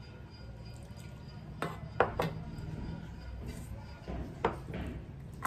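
Small stainless steel bowls clinking against steel plates as dal is poured over rice and the bowls are set down: a handful of sharp metallic clinks, the loudest about two seconds in, over a low steady hum.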